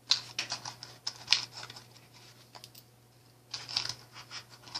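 Loose buttons clicking and rattling against each other as they are handled and taken out, in two bursts of quick small clicks.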